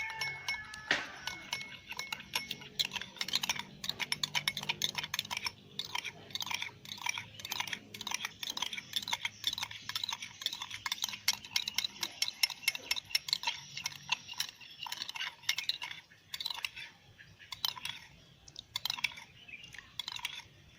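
A spoon stirring in a glass, clinking quickly and irregularly against its sides.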